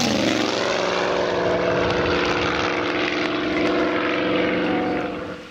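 Engine and propeller of a giant-scale radio-controlled P-51 Mustang model making a low pass. The pitch drops as it goes by, then the engine runs steadily as the plane climbs away, until the sound cuts off near the end.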